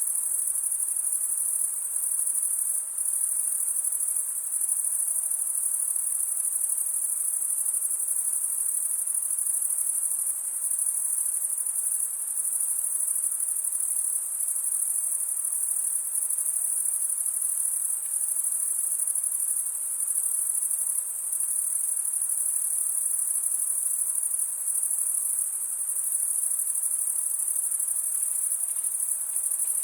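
A dense chorus of crickets trilling on a summer night: a continuous, high-pitched, steady wall of chirping.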